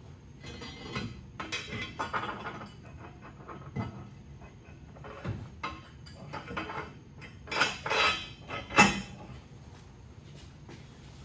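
Steel parts clanking and knocking as a fabricated bracket and plate are handled and test-fitted, a run of irregular metallic knocks with the loudest clanks about eight seconds in.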